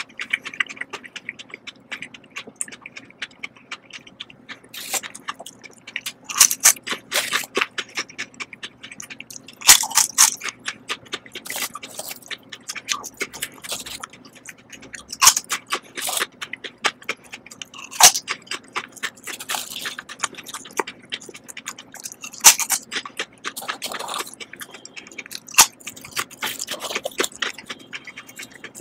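Potato chips (Lay's Texas BBQ) crunched and chewed close to the microphone: a long run of sharp, irregular crunches, some of them loud. Chips also rustle and scrape as they are picked up off the board.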